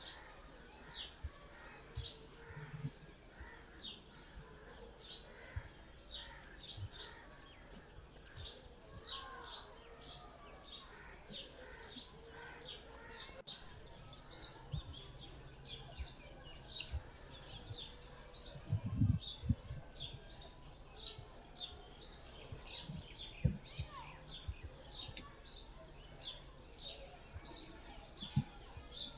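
Small birds chirping over and over in short, high notes, with a few sharp clicks or knocks.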